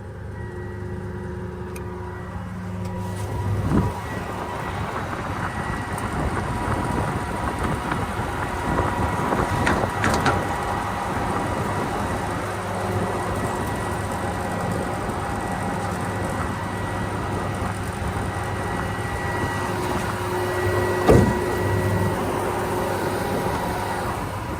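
Combine harvester running, heard from its cab, with a steady whine over the engine as a part folds out automatically at the press of a button. The sound gets louder a few seconds in, with a few knocks along the way.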